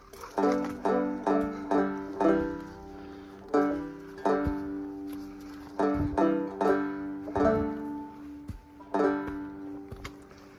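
Background music: a plucked string instrument picking a melody, each note struck sharply and ringing out.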